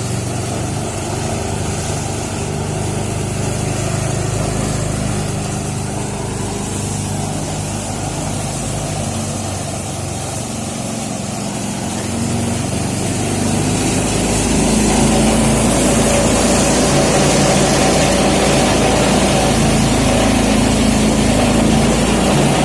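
Small engine of a motorised rice thresher running steadily, getting louder about halfway through.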